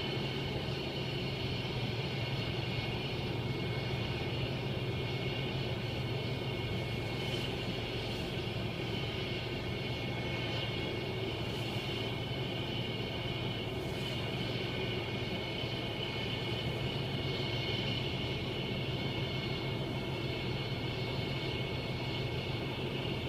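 NASA ER-2's single turbofan jet engine running at idle: a steady rumble with a constant high whine, heard from inside a car's cabin.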